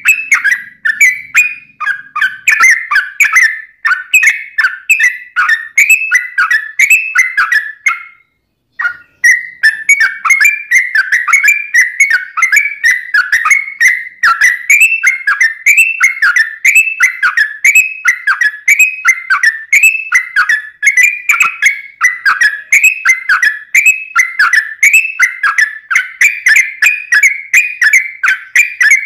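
Sooty-headed bulbul (trucuk) singing a long, unbroken run of quick, repeated whistled phrases, with a brief break about eight seconds in.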